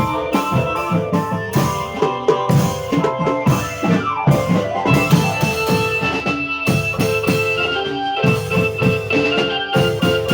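Music with a busy drum beat under melodic instruments.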